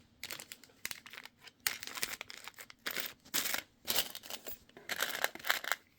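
Wrapping material rustling and crinkling in short, irregular spells as a tool is wrapped up for protection.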